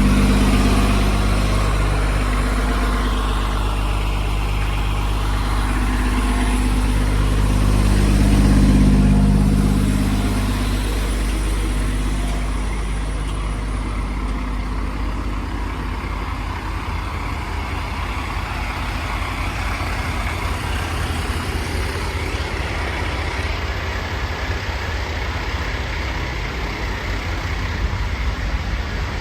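Large vehicle engine idling: a steady low hum that turns into a rougher, pulsing rumble about halfway through.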